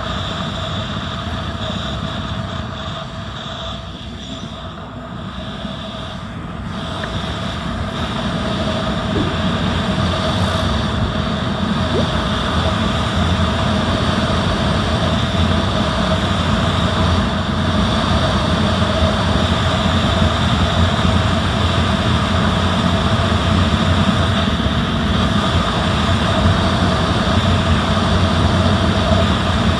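Steady vehicle engine and road noise heard from a vehicle on the move, with a faint steady hum, getting a little louder about seven seconds in.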